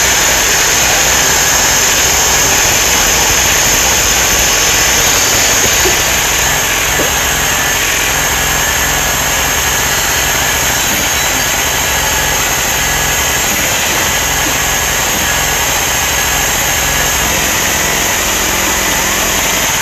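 An engine running steadily, with a slight drop in level about six seconds in.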